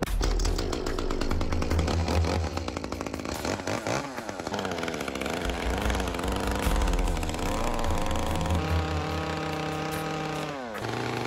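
Small carving chainsaw running and cutting into a wooden crow carving, its pitch rising and falling with the cuts. Near the end the pitch drops sharply as the saw eases off, then it runs steadily at a lower pitch.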